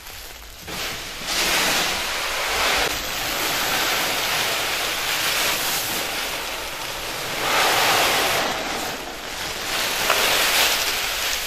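Grain pouring from a woven sack into a wooden mill hopper: a hissing rush that starts about a second in and swells several times as the sack is tipped, with the rustle of the sack.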